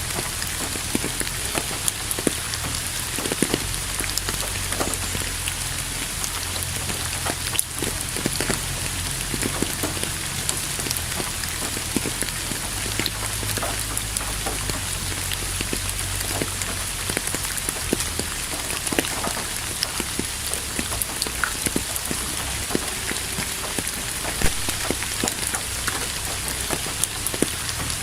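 Steady rain falling on a surface, a constant hiss with many individual drops ticking and splatting through it, over a low rumble.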